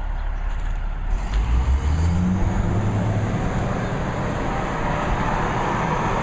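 John Deere 200C LC excavator's diesel engine running, then revving up about a second in and holding at a higher speed.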